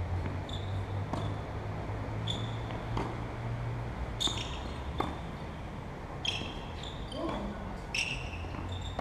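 Tennis rally: sharp ball strikes and bounces on the court, about one a second, with short high squeaks among them.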